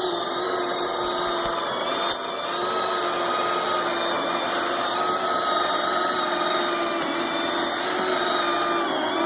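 Knockoff robot vacuum running: a steady, noisy motor whine with a few held tones over a hiss, and a brief click about two seconds in.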